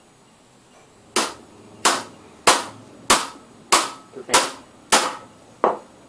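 Eight hammer blows on a bicycle crank, about one every two-thirds of a second starting a second in, knocking the crank arm off its spindle without a crank puller.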